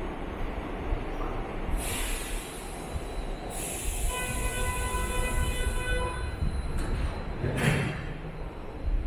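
Seoul Line 9 subway train standing at a platform behind screen doors, over a low rumble. Compressed air hisses about two seconds in, and a steady multi-note tone sounds for about two and a half seconds from around the middle. A second short burst of hiss comes near the end.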